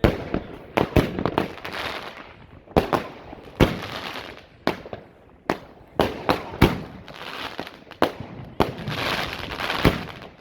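A 36-shot consumer firework cake firing: a string of sharp bangs at uneven intervals, some in quick pairs, with a noisy hiss between them.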